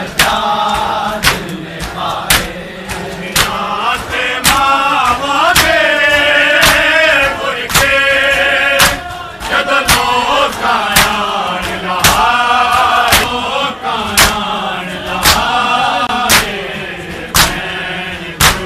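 Crowd of male mourners chanting a nauha in unison, with hand-on-chest matam strikes landing together in a steady beat about once a second.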